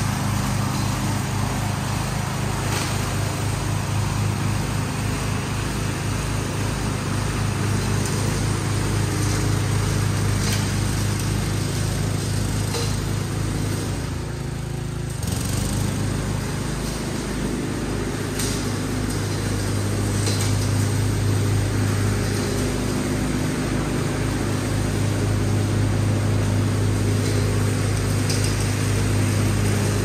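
Riding lawn mower engine running steadily as it mows, with a brief dip about halfway through.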